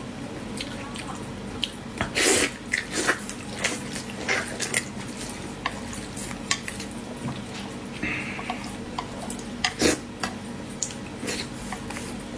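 Eating utensils clicking and scraping against dishes in short, irregular clinks, with a couple of louder clatters.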